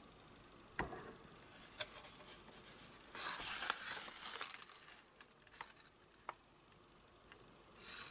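Handling noise: a sharp knock about a second in, then crinkly rustling of packaging with scattered light clicks, loudest for a second or so around the middle.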